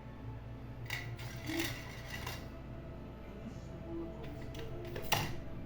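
Quiet background music with a few light clicks and clinks, the sharpest about five seconds in.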